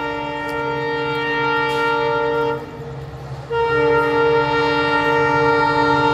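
Air horn of a WDP4D diesel locomotive sounding two long blasts as it approaches. The first blast cuts off about two and a half seconds in, and the second starts about a second later. The low rumble of the locomotive's diesel engine runs underneath.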